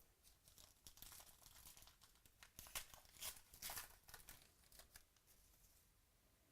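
Faint crinkling and tearing of a trading-card pack wrapper being ripped open, a run of crackles that peaks midway and trails off near the end.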